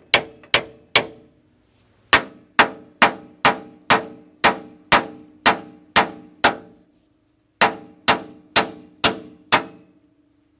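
A hammer striking steel steering-linkage parts about eighteen times, roughly two blows a second in three runs with short pauses between them. Each blow rings with a metallic clang. The blows are meant to shock a tapered joint stud loose from its socket.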